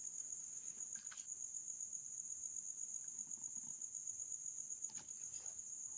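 Steady high-pitched trill of crickets, with a faint brief rustle about a second in and a faint click about five seconds in.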